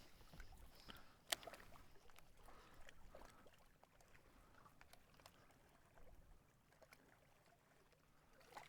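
Near silence, with a few faint small clicks and ticks. A sharper click comes about a second in.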